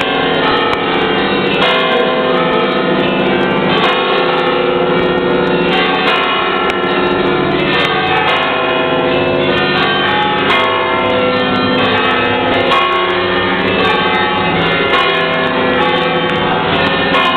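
Several church bells pealing together, a dense continuous overlap of strikes and ringing tones at different pitches.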